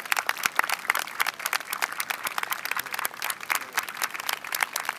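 Crowd of spectators applauding, a dense, steady patter of many hands clapping.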